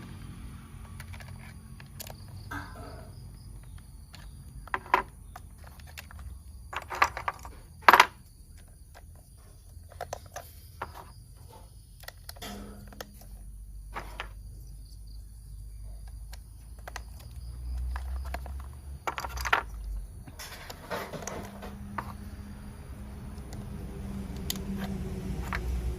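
Toy train parts being handled and fitted together: scattered clicks and knocks, the loudest a sharp knock about eight seconds in.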